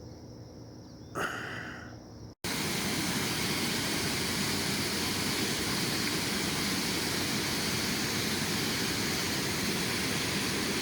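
Insects buzzing steadily and faintly, with one sudden sound about a second in. After a brief dropout, a loud, even rushing noise takes over and holds steady.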